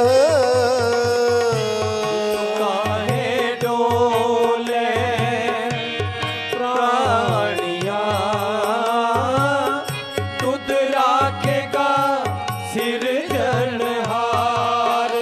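Kirtan devotional music in an instrumental passage between sung lines: a wavering melody over sustained notes, with tabla strokes keeping a steady beat.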